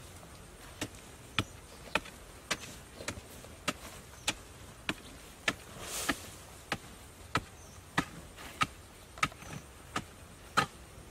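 A hand digging tool chopping into hard earth in a steady rhythm of sharp strikes, about one every 0.6 seconds, with a short scrape of loose soil about six seconds in.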